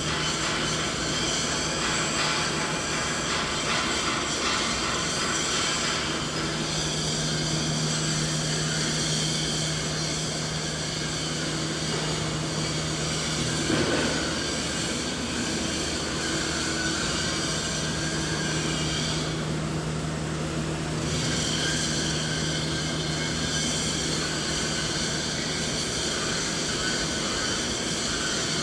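Steady machinery noise: a continuous mechanical drone with a low steady hum under a dense hiss. There is a brief louder bump about halfway through, and the upper hiss dips for a moment a little later.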